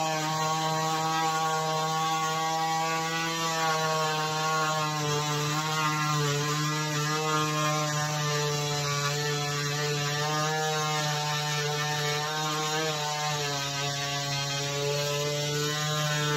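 Cordless DeWalt oscillating multi-tool running steadily as its blade cuts through a plastic battery case, a buzzing hum whose pitch wavers slightly as the blade bites into the cut.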